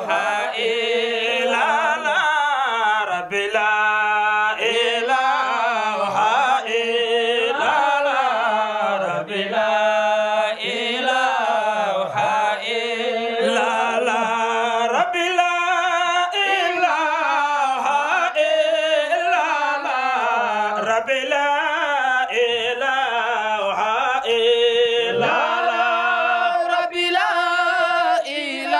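A group of men chanting an Islamic devotional song without instruments, one lead voice at the microphone carrying a wavering, ornamented melody. The melody moves higher about halfway through.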